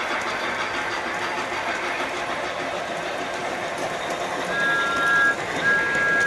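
Large-scale model train wheels rattling steadily over the track. About four and a half seconds in, a sound-equipped model locomotive's whistle gives a short toot and then, after a brief gap, a longer one.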